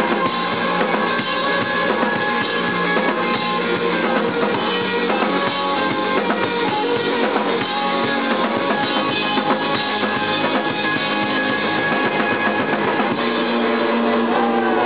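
Live rock band playing with a full drum kit, the music settling into steadier held notes near the end.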